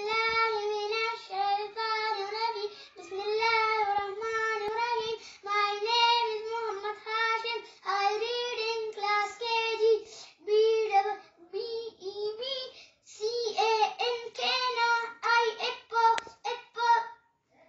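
Young boy's voice reciting from a workbook in a high sing-song chant, phrase after phrase with short breaks and a longer pause about twelve seconds in.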